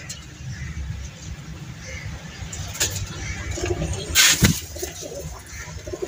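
Pigeons cooing in low, repeated calls, with a loud, brief noisy burst about four seconds in.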